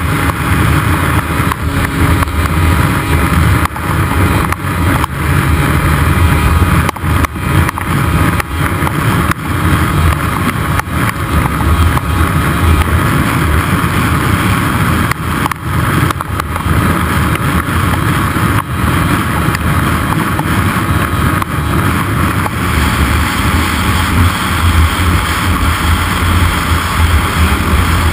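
800 cc two-stroke snowmobile engine running at speed under throttle, loud and continuous, with a few brief dips in the note where the throttle eases or the sled hits bumps.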